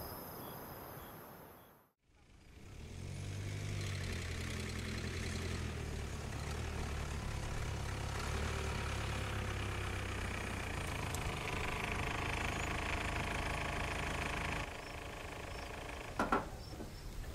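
Hyundai SUV engine running at a low, steady hum, fading in over a couple of seconds and cutting off abruptly after about twelve seconds. A couple of sharp clicks near the end.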